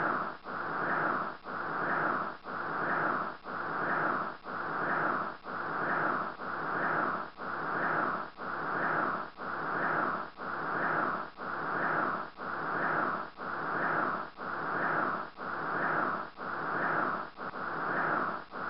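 A hissing, whooshing noise that pulses evenly about once a second, each pulse swelling and fading, like a looped rhythmic noise track.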